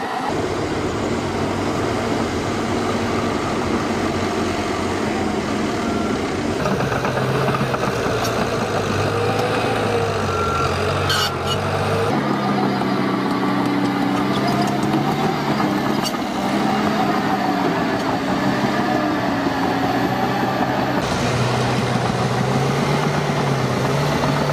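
Heavy diesel engines of a John Deere excavator and articulated dump trucks running, their pitch rising and falling with load, with a few brief knocks around the middle. The sound changes abruptly several times.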